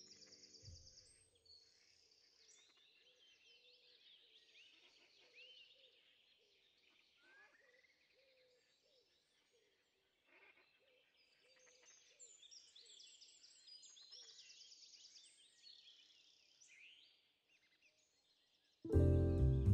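Faint birds chirping and trilling, many short calls and quick pitch glides overlapping. Background music stops just after the start and comes back loudly near the end.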